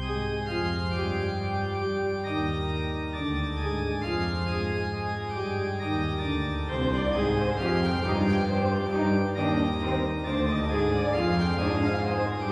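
Organ music: held chords that shift from one to the next.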